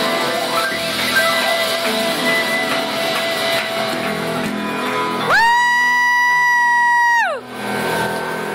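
Live band with upright piano, guitar, upright bass and drums playing the end of a rock number. About five seconds in, a loud, high whoop from a person close to the microphone rises to one held pitch for about two seconds, then drops away.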